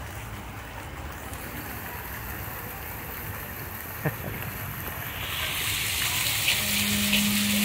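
Fountain jets splashing into a shallow water channel, a steady hiss of spray that grows louder a little past halfway through. A single brief tick about four seconds in.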